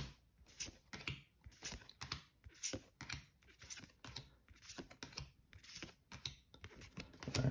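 Yu-Gi-Oh trading cards being flipped through one at a time in the hand: a short flick as each card is slid off the stack, about two a second.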